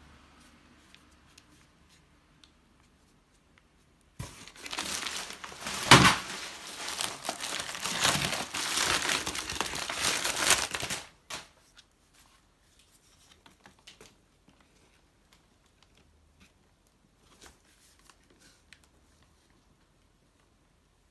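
Packing material crinkling and rustling as it is handled and pulled open, with one sharp loud rip about six seconds in. It runs for about seven seconds, then gives way to a few light clicks and taps.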